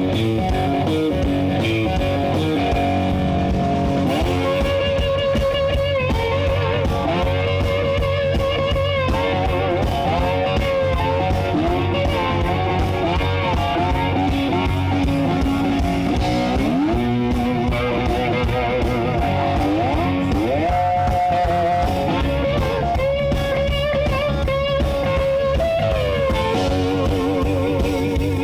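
Live blues-rock boogie played as an instrumental break: an electric guitar lead with string bends and vibrato over the band's steady bass and drum rhythm.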